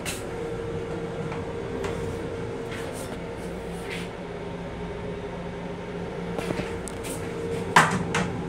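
Steady hum of an M7 commuter railcar's restroom, with two steady tones over a low noise bed and a few light clicks and rattles. Near the end a sharp knock sounds as a hand handles the toilet lid.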